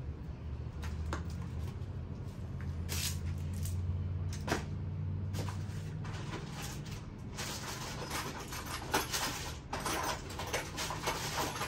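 Scattered knocks, clicks and rustling as e-bike parts and packaging are handled, getting busier and crackly in the second half. A low hum runs under the first six seconds or so.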